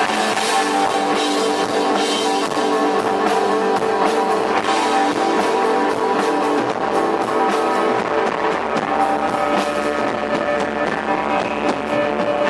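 Live post-punk band playing: electric guitar holding sustained tones over a drum kit with frequent cymbal and drum hits.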